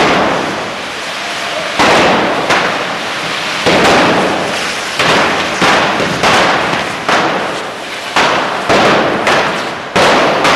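Cordà of Bocairent's traditional cane rockets (canyes) going off in a crowd: a steady hiss of burning rockets with sharp bangs about once a second, each trailing off in an echo.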